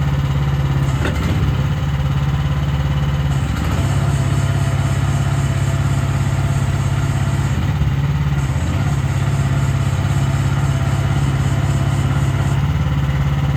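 Mini hydraulic excavator's engine running steadily, with small shifts in its note about three and a half and eight seconds in.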